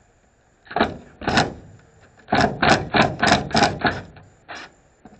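Hammer striking a metal truck-bed tie-down anchor: two blows about a second in, then a quick run of about six at roughly three a second, and one last blow near the end.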